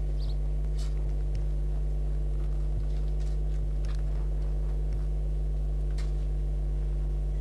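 Steady low electrical mains hum throughout, with a few faint scattered clicks.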